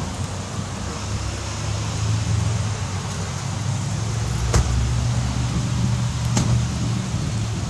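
SEPTA electric commuter train approaching, a steady low hum that builds about a second and a half in. Two sharp clicks in the second half.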